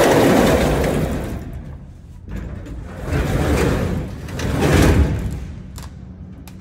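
Sectional garage door being pulled down by hand, its rollers rumbling along the metal tracks in two long swells, with a few light clicks near the end.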